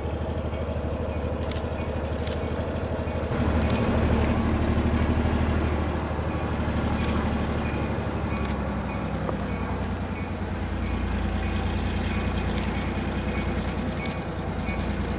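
Diesel engine of an EMD switcher locomotive running as it works along street track, a steady low drone that gets louder about three seconds in, with a few sharp clicks over it.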